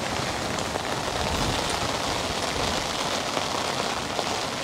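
Heavy rain falling steadily, with scattered sharper drop ticks.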